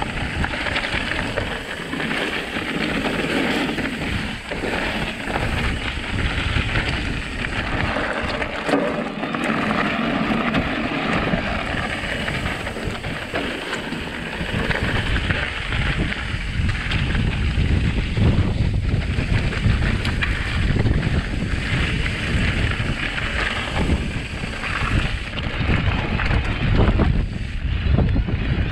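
Wind rushing over the microphone and a mountain bike rumbling and rattling along a dirt trail at speed.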